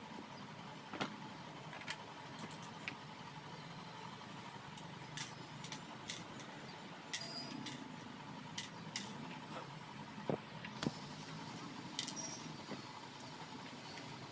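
About a dozen scattered, irregular clicks and taps as the plastic housing of a digital motorcycle speedometer and a screwdriver are handled on a workbench, over a steady low background hum.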